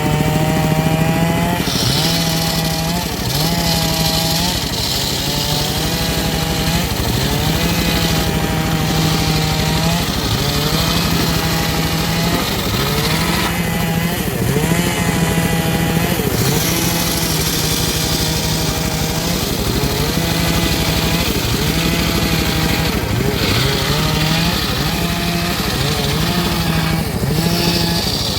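Homemade engine-driven circular saw cutting teak. The motor's pitch sags and recovers every second or two as the blade takes the wood, with a hiss of cutting that comes and goes.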